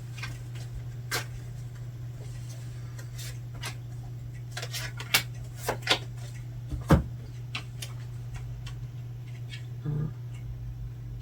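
Tarot cards being shuffled and handled: scattered, irregular light snaps and taps of the cards over a steady low hum.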